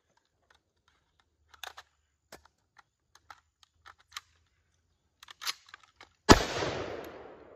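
A series of sharp metallic clicks and clacks from an M14 rifle being reloaded: the empty magazine coming out and a fresh one being seated. About six seconds in comes a single loud .308 rifle shot, its echo trailing off over the next second.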